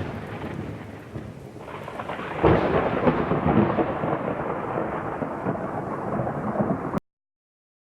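Thunderstorm sound: a clap of thunder fading away, then a second rolling rumble of thunder with rain about two and a half seconds in, which cuts off abruptly about a second before the end.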